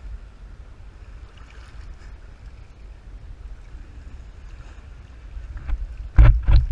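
Steady low wind rumble on the microphone over open water, with faint sea sounds. A couple of loud knocks come near the end.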